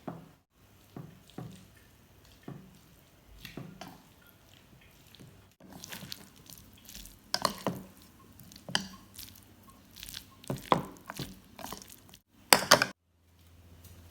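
Water splashing and dripping in irregular bursts as sliced potato is rinsed and drained, louder and busier in the second half. It stops abruptly near the end, leaving a steady low hum.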